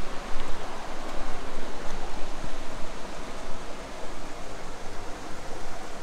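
Steady rushing of a mountain stream, an even noise with no breaks.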